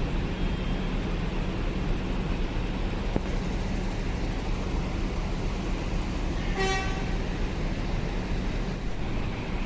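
Bus engine running steadily, with one short horn toot about six and a half seconds in.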